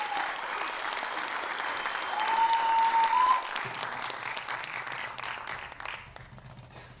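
Audience applauding after a belly dance and tabla number, with a short high held call from the crowd about two seconds in. The clapping thins out and fades near the end.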